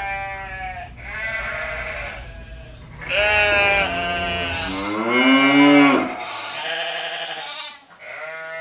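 Farm animal bleating: a run of about six long, wavering calls one after another, the last one fainter.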